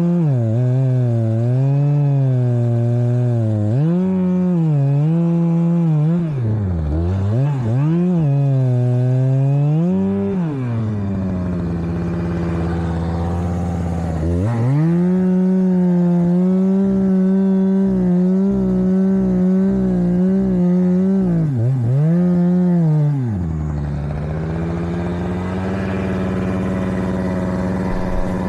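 Two-stroke chainsaw running at high throttle while cutting, its pitch wavering and sagging under load. Several times the revs drop sharply and climb back up. Near the end it settles to a steadier, slightly quieter note.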